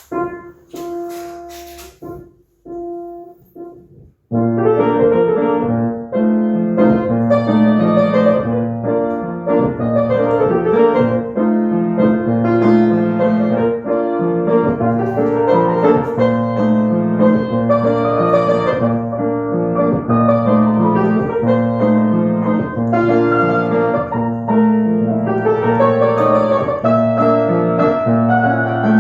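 A few short tones, then about four seconds in piano-sounding keyboard music starts, chords and melody played continuously.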